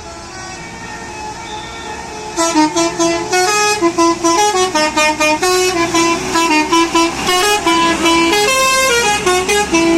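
Indonesian bus 'telolet basuri' multi-tone horn playing a quick melody of short notes that jump up and down in pitch, starting about two and a half seconds in.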